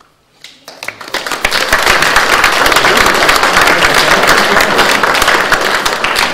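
An audience applauding, building up about a second in and dying away near the end.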